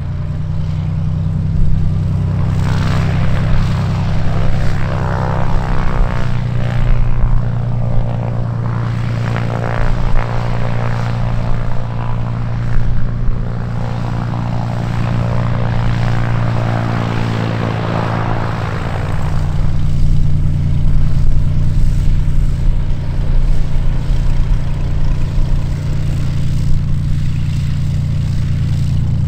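Light aircraft's piston engine and propeller running close by: a steady low drone with a higher droning tone that swells from about two seconds in and fades after about nineteen seconds.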